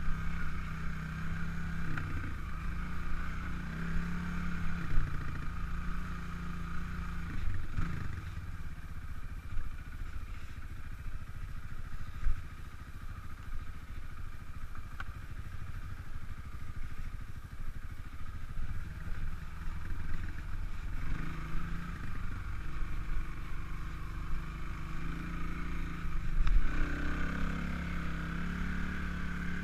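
Kawasaki KLX300 dirt bike's single-cylinder four-stroke engine running on a trail ride, revs rising and falling with the throttle. It goes quieter for a stretch in the middle and revs up again near the end, with a few sharp knocks from bumps in the trail.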